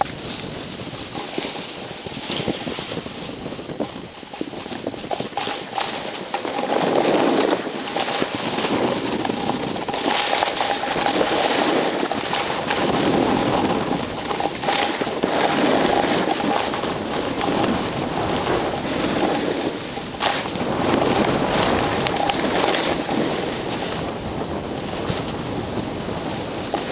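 Wind buffeting the microphone and snow hissing underfoot during a fast descent through powder, the noise swelling and fading in waves every second or two with the turns.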